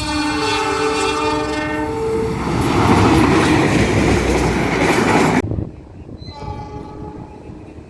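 A diesel locomotive's multi-tone S35 horn sounds a chord for about two seconds, then a loud rush of the train passing close by. About five seconds in, the sound cuts off suddenly to a quieter scene where a fainter horn chord sounds briefly.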